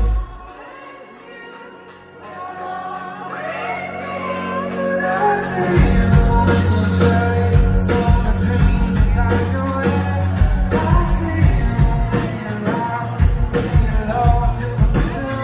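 Live rock band in a large hall: male lead vocals over electric guitar, bass and drums. The band drops out just after the start, leaving a quiet stretch, then the singing builds back and the full band with bass and drums comes back in about six seconds in.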